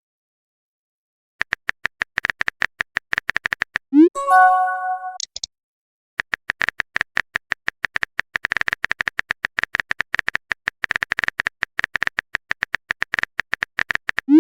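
Rapid typing clicks from a keyboard tapping sound effect, in long runs. About four seconds in there is a short rising pop followed by a brief chime, and another pop near the end, like message-sent sounds.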